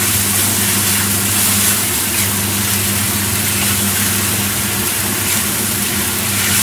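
Salted fish, chicken and tofu braising in sauce in a wok, sizzling steadily over a constant low hum from the kitchen's cooking appliances, while a spatula turns the food.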